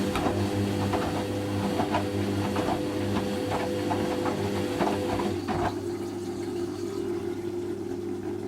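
Hoover Quattro front-loading washing machine running, its drum motor giving a steady hum while the laundry and water tumble in the drum with irregular knocks and splashes. The tumbling stops about five and a half seconds in and the motor hum carries on more quietly.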